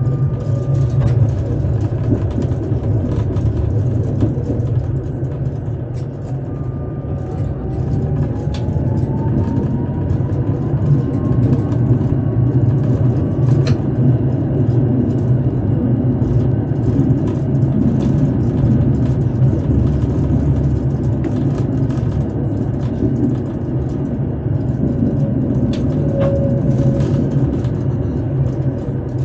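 Tatra T3 tram running along the track, heard from the driver's cab: a steady low rumble with scattered clicks, and a thin whine that climbs slowly in pitch for several seconds and then cuts off suddenly just before halfway.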